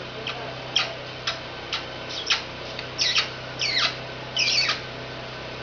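Pet parrot making a string of short, high-pitched squeaks and chirps, about ten in all; the later ones are longer and fall in pitch.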